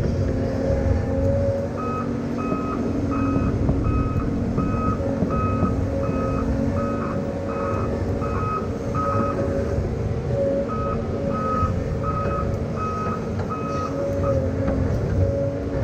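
Backup alarm on a piece of heavy machinery beeping steadily, about one and a half beeps a second, over the machine's engine running. The beeping starts about two seconds in, stops for about a second midway, then resumes.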